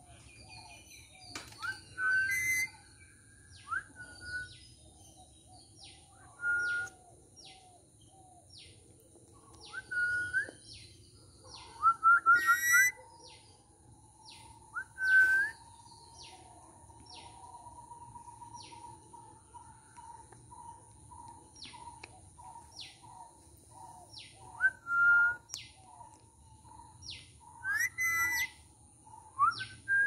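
Indian ringneck parrot (rose-ringed parakeet) giving short whistles and chirps every few seconds, some with a rising end, with softer chirps in between.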